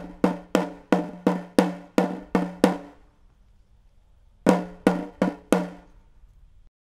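A drum struck in an even beat, about three strikes a second, each ringing briefly at the same pitch; after a pause of about a second and a half, four more strikes follow.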